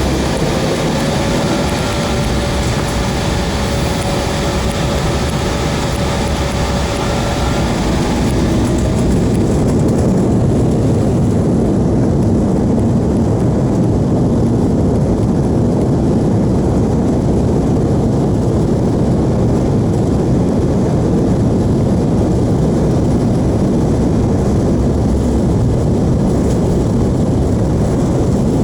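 Airliner cabin noise from the engines. For the first nine seconds or so there is a steady whine over a broad hiss. Then it gives way to a deeper, slightly louder, steady rumble, typical of engines spooling up to takeoff power.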